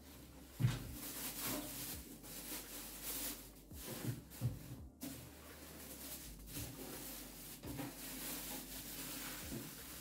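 Handling noises from unpacking a PC case: scattered knocks and taps with light rustling of packaging, the sharpest knock about half a second in.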